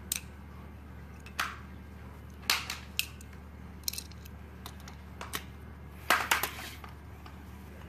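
Scattered plastic clicks and knocks from a toy car being handled and set onto an orange plastic Hot Wheels track, with a quicker run of clicks about six seconds in.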